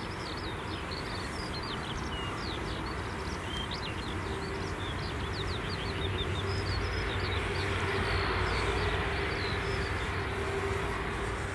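Jet airliner engines rumbling at a distance, swelling slowly to a peak about eight seconds in and then easing off, with small birds chirping over it.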